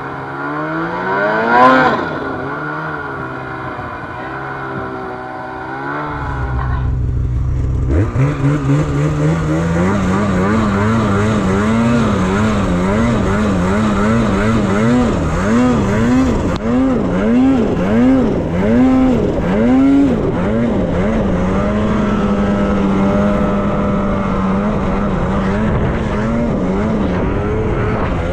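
Snowmobile engine revving hard about a second and a half in, then falling back to a lower, wavering run. It climbs again near eight seconds, rises and falls with the throttle about once a second, then holds a steady pitch for the last several seconds.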